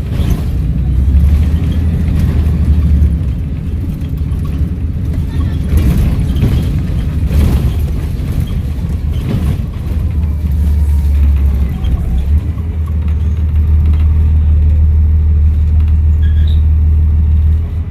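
Volvo B7RLE bus engine running with a loud, low drone. It eases and becomes uneven in the middle, with a few short knocks, then pulls steadily and loud until it drops off just before the end.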